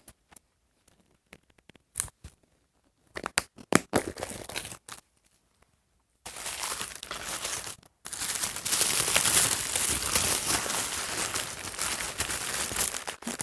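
Toy packaging being crinkled and torn open by hand: scattered crackles at first, then continuous crinkling and tearing from about six seconds in, with a brief pause near eight seconds.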